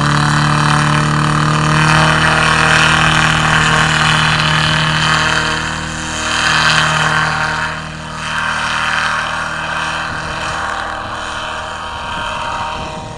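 Paramotor's Honda-clone single-cylinder four-stroke engine and propeller running at full power through the take-off run. The note holds steady at first, then fades over the last few seconds as the machine climbs away.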